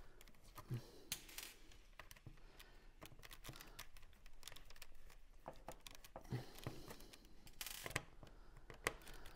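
Faint scattered clicks and taps of a screwdriver working small screws out of a plastic overhead-console frame, with a short scrape near the end.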